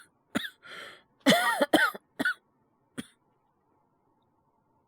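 A young man's fit of coughing from a cold, acted by a voice actor: a run of short coughs, the loudest a little over a second in, ending with a single smaller cough about three seconds in.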